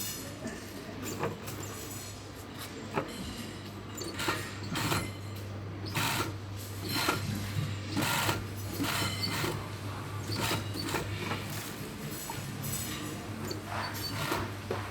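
Sewing machine stitching synthetic wig hair in short, irregular bursts over a steady low hum.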